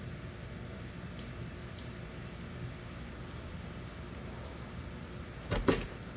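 Steady light patter of drizzle with faint scattered drips, and one brief knock about five and a half seconds in as the pickup's door mirror is handled.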